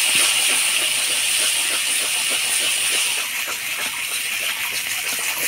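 Onion-tomato masala, with yogurt and sugar just stirred in, sizzling in a hot metal pan, with a spatula scraping and clicking against the pan as it is stirred. The sizzle eases a little about three seconds in.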